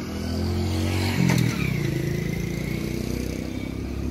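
A motorcycle passes close by, its engine note louder and dropping in pitch as it goes past about a second in. Under it runs the steady low rumble of a heavy lorry's diesel engine.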